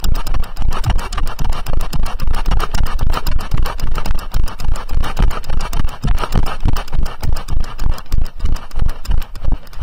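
A horse's hooves striking a hard path at a brisk pace, heard from the saddle, with rapid rhythmic knocks and rattling as the rider and gear are jolted at every stride.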